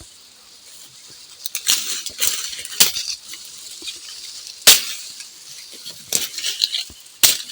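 Dry maize stalks being chopped: about half a dozen sharp, crisp cracks at uneven intervals, the loudest a little under five seconds in, with light rustling of the dry stalks and leaves between them.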